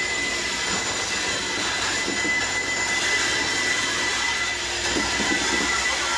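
Moving train: a steady rush of wind and wheel noise with a faint, thin high whine held throughout.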